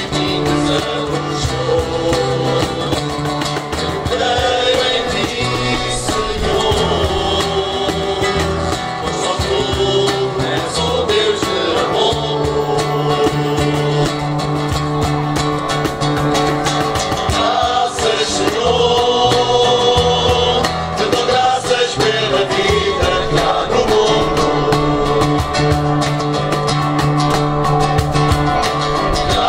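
Men's choir singing together to two strummed acoustic guitars and a cajón.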